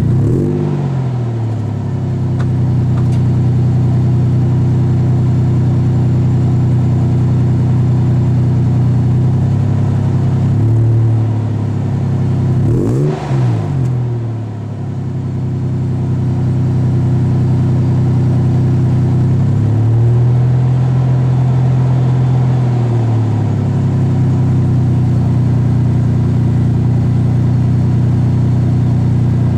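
Exhaust of a 2002 Toyota Tacoma's 3.4-litre V6 through a Magnaflow-style straight-through muffler (Xlerator clone), idling steadily between throttle blips. The revs fall back to idle right at the start, rise a little about a third of the way in, jump sharply and drop back shortly after, and rise and hold for a few seconds past the middle before settling to idle again.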